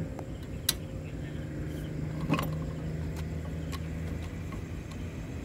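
Window-type air conditioner running after being plugged in, giving a steady low hum, with two sharp clicks under a second in and about a second and a half later.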